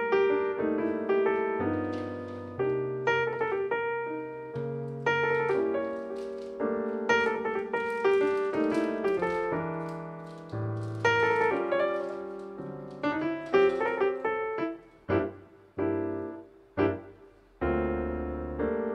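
Background piano music: a melody of struck notes that die away, thinning near the end into a few separate notes with short pauses between them.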